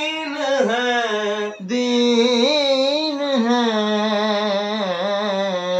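A man singing a naat with no instruments, drawing out long ornamented notes with wavering, gliding pitch and a short break for breath about a second and a half in.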